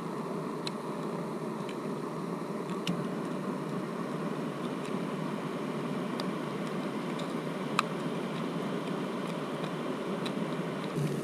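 Camp stove burning under a pot of crab stew being brought to a boil: a steady rushing noise with a few scattered small pops.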